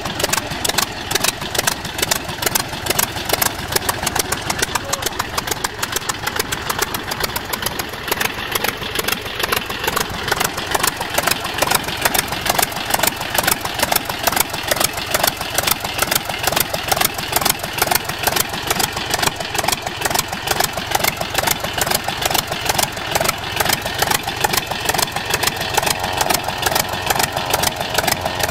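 Polikarpov Po-2 biplane's Shvetsov M-11 five-cylinder radial engine idling on the ground with its propeller turning: a steady run of rapid, even firing pulses.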